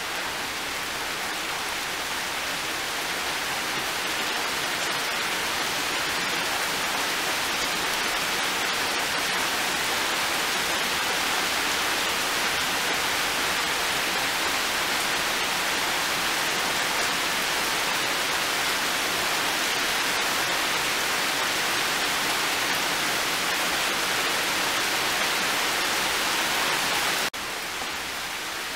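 Heavy rain falling steadily, a dense even hiss. Near the end the level drops suddenly to a lower, still steady hiss.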